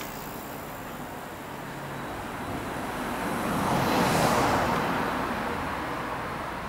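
A car driving past: its tyre and engine noise swells to a peak about four seconds in, then fades away.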